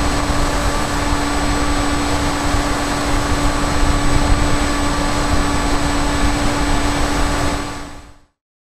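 Electric motor and propeller of a Bixler RC foam plane whining at a steady pitch, recorded by the onboard camera under heavy wind rush on the microphone; it fades out near the end.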